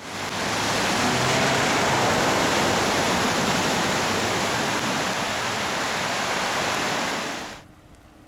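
Steady rush of running water, fading out quickly near the end.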